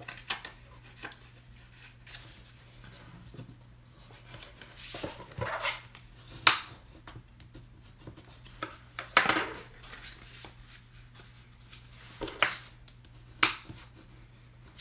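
Black cardstock being folded along scored lines and creased flat with a bone folder: several short scrapes and sharp snaps of the card, the loudest about five and nine seconds in and twice near the end, over a faint steady low hum.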